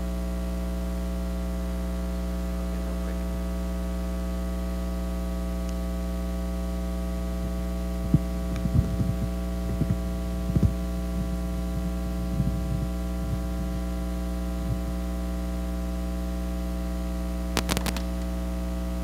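Steady electrical mains hum, a stack of constant low tones, with scattered thumps and knocks of a microphone being handled on its stand from about eight seconds in, and a few sharp clicks near the end.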